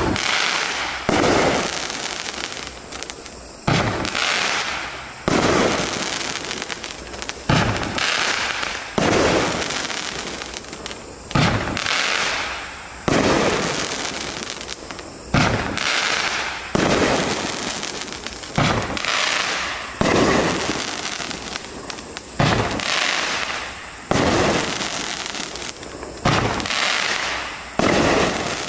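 A 500-gram, 12-shot consumer fireworks cake (Absolute Power) firing its shots one after another: a sharp bang every second or two, each fading off in a hiss.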